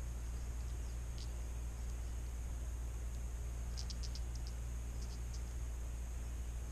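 Crickets chirping over a steady low hum, with a short run of quick chirps about four seconds in.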